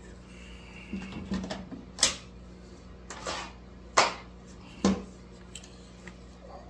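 Irregular sharp knocks and clacks, about six of them, the loudest about two and four seconds in, as a cordless chainsaw's plastic body is handled and lifted. The saw is not running. A faint steady low hum lies beneath.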